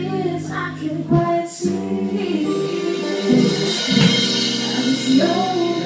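Live band playing, with a woman singing lead into a microphone over sustained chords.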